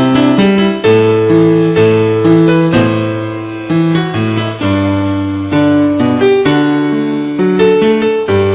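Piano accompaniment playing a run of chords under a melody, with each note struck and held, and no singing. It is an instrumental passage of the choir's song.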